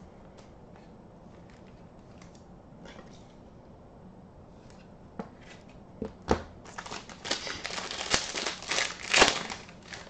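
Faint handling clicks, then from about six seconds in a silver foil card wrapper crinkling as it is handled and opened, loudest near the end.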